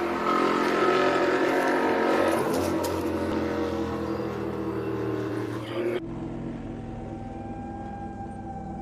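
A steady engine drone of several held tones, loudest about a second in and easing off slowly. About six seconds in the sound cuts abruptly to a fainter steady hum.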